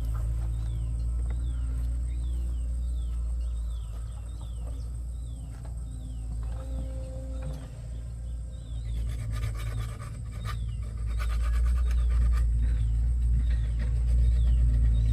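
Bird chirping, short falling calls repeated about once or twice a second, over a steady low hum.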